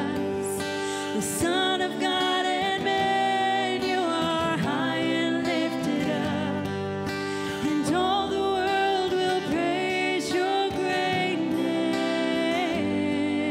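Live worship music: women's voices singing into microphones over sustained instrumental chords.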